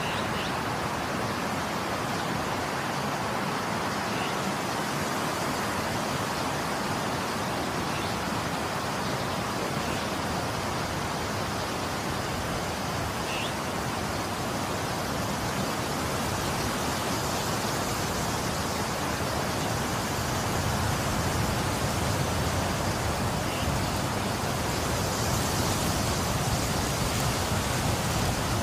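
Steady roar of storm wind and rain, growing somewhat louder over the last third, with a few faint ticks.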